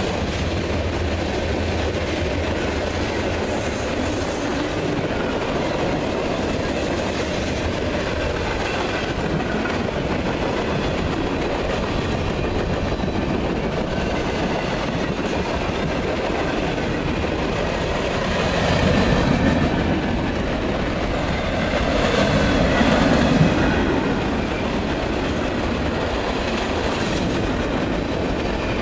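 Freight train cars rolling past: a steady rumble with the clickety-clack of wheels over the rails and a faint wheel squeal, swelling louder twice about two-thirds of the way through.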